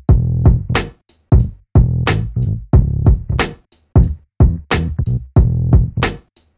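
Electronic music with a punchy drum-machine beat and deep bass notes in a steady rhythm, broken by brief dead-silent gaps.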